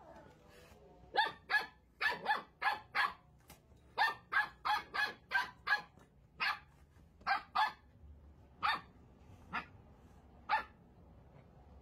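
Puppy barking in a string of about twenty short yaps. They come several a second in quick runs from about a second in, then thin out to single barks a second or more apart near the end.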